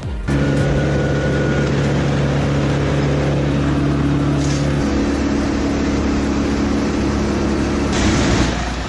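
Heavy machine's diesel engine running steadily under load, with a dense mechanical noise over its hum; the pitch of the hum shifts about halfway through.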